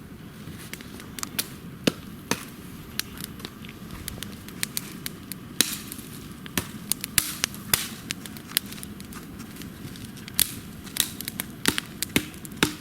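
Campfire crackling, with irregular sharp pops and snaps over a low steady hiss of burning wood.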